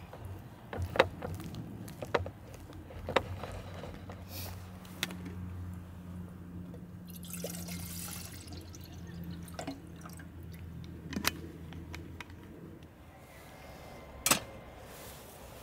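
Water poured from a plastic bottle, a brief splashing pour of about a second and a half midway through, amid sharp clicks and knocks of the bottle and cookware being handled. A low steady hum runs underneath and fades out near the end.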